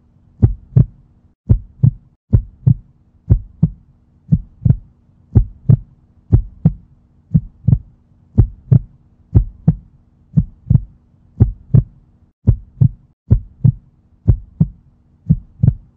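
Heartbeat sound effect: slow, steady double thumps (lub-dub), about one beat a second.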